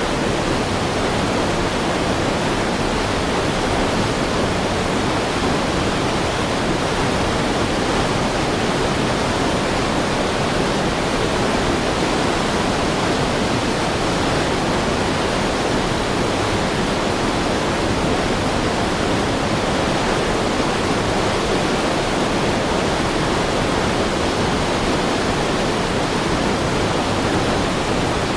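Heavy river stream rushing steadily, a loud, unbroken wash of water.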